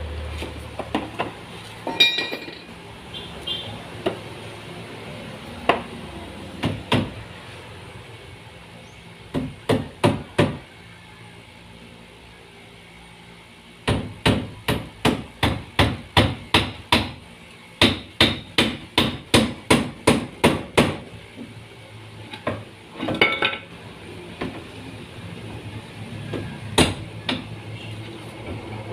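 Hammer driving nails into wood. There are scattered single blows and pairs at first, then a quick, even run of about two or three strikes a second in the middle, then a few last blows.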